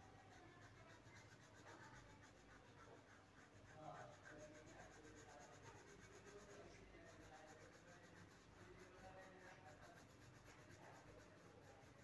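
Faint scratching of a coloured pencil shading back and forth on paper.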